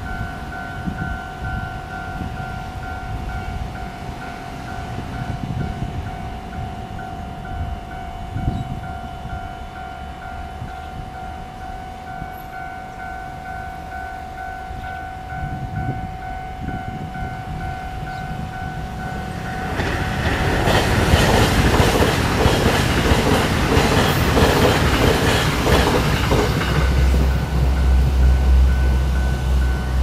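Level-crossing warning bell ringing steadily, then about 20 seconds in a TEMU1000 Taroko Express electric train passes the crossing for about six seconds, with wheels clattering over the rail joints. A low rumble follows near the end.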